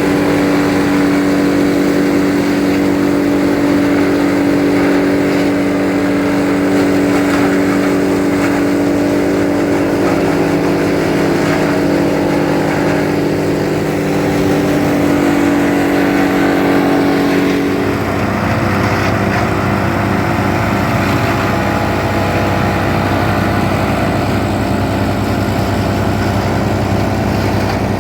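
Tractor-driven PTO drum wood chipper running, with a steady engine note; about two-thirds of the way through the pitch drops and the sound turns lower and rougher.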